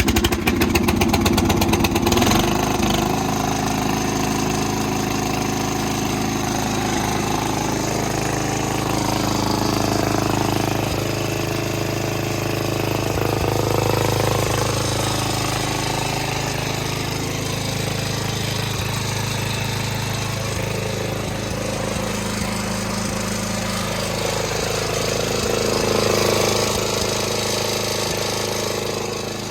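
Murray 12.5 hp riding lawn mower engine, just started on choke, running. It is rough for the first couple of seconds, then settles into a steady run.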